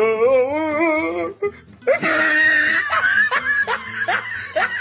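Dubbed comedy soundtrack: a voice warbling with a wobbling pitch, a loud harsh cry about two seconds in, then rapid bursts of laughter.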